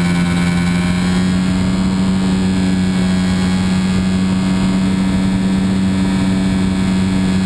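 Model airplane's motor and propeller running at a steady speed, a constant hum over a rush of wind, heard from a camera riding on the aircraft.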